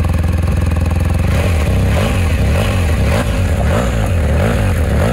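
BMW R 1250 GS boxer twin running through a new Jekill and Hyde Nomad exhaust in its quietest valve mode. It idles steadily at first, then from about a second and a half in the throttle is blipped repeatedly, the revs rising and falling in quick succession. The tone is a little deeper and more throaty than stock, with a rasp.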